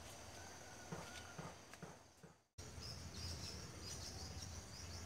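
Faint outdoor ambience of insects chirring steadily, with a few light taps in the first half. The sound drops out for a moment about halfway through. After that the chirring is louder.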